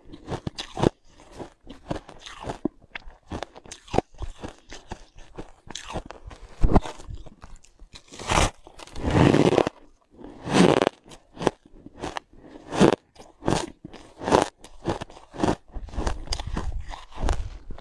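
A person biting and chewing frosty white ice: a run of crisp crunches, with a longer, louder stretch of crunching about halfway through.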